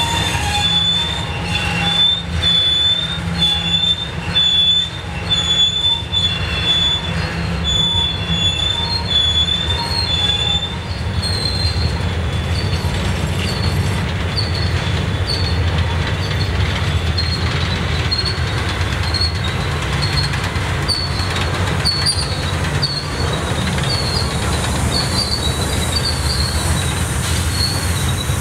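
Rusty freight cars of a CSX rail train (gondolas and rail racks) rolling past as the train shoves in reverse into a siding, with a steady low rumble. The wheels squeal against the rail in a string of short, high squeals about once or twice a second. The squeal pitch steps higher about a third of the way through.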